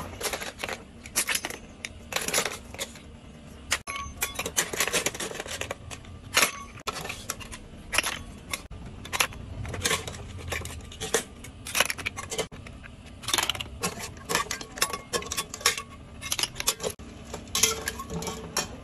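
Cooked snail shells clattering and clinking against a metal ladle and aluminium pot as they are scooped out and dropped into a plastic colander: many irregular sharp clicks.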